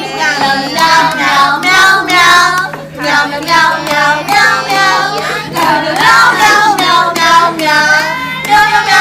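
A child's voice singing a song over recorded music, loud, with a steady low hum beneath.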